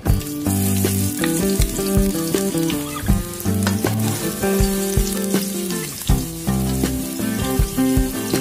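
Sliced onion sizzling in hot cooking oil in a nonstick wok, starting about half a second in as it hits the oil and going on as it is stirred with a wooden spatula, over background music.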